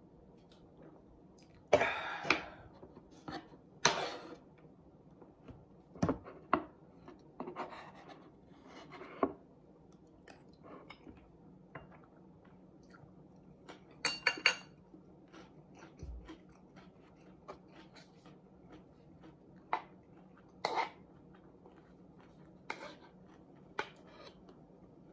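Eating sounds: a spoon clinking and scraping in a wooden bowl, with chewing and scattered irregular knocks of things handled on the table, the loudest about two and four seconds in.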